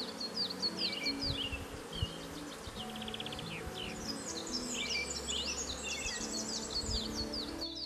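Honeybees buzzing around a swarm, with many birds chirping over them and soft background music underneath.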